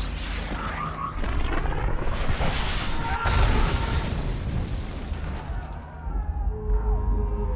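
Battle sound effects from a film mix: heavy booms and explosions over a dense rumble, with a sharp crash about three seconds in.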